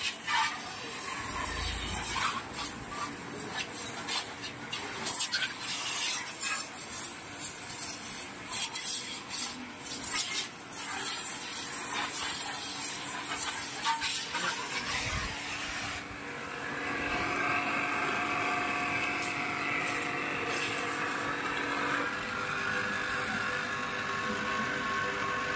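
High-pressure water jet from a 3 HP induction-motor pressure washer hissing and spattering against a motorcycle. About two-thirds of the way through, the spatter gives way to the steadier hum of the washer's motor and pump, with several held tones that shift once.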